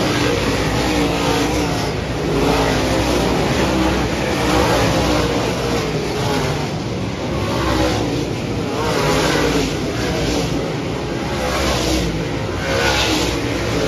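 A pack of dirt-track modified race cars racing around the oval, their V8 engines running hard. The sound rises and falls every couple of seconds as cars come past and lift and accelerate through the turns.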